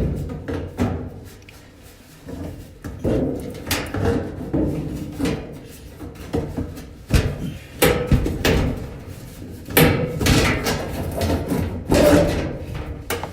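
Irregular knocks, bumps and scrapes of the dryer's sheet-metal panel being pushed and wrestled into place so its lip seats.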